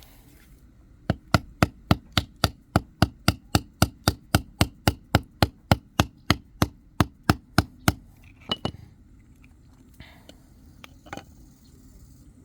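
A fast, even run of sharp knocks, about four a second for some seven seconds, then two more knocks and a lighter one near the end. These are blows struck to free a cut, epoxy-filled screwdriver handle that is still stuck fast on its steel shaft.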